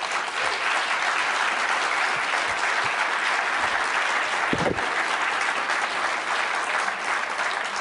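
Audience applauding steadily at the close of a talk, with a brief low thump about halfway through.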